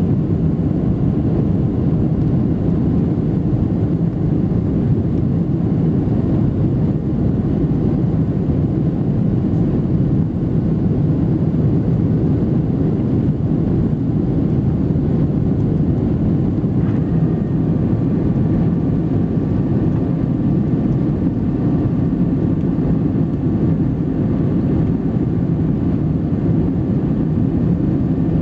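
Cabin noise inside a Boeing 737-700 airliner: the CFM56-7B jet engines and airflow make a steady low rumble. About seventeen seconds in, a faint steady whine joins it.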